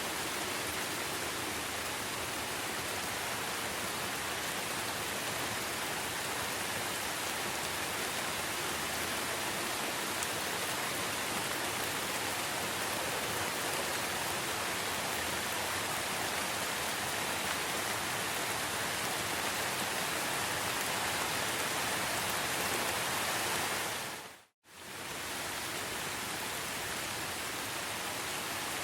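Steady rain falling in a forest, an even hiss with no single drops standing out. About 24 seconds in, the sound dips out to silence for a moment and then fades back in.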